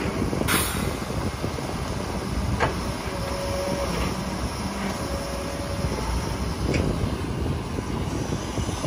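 Kobelco SK250 excavator's diesel engine running steadily as it loads soil into a dump truck, with a short hiss about half a second in, two sharp knocks, and a faint steady tone twice in the middle.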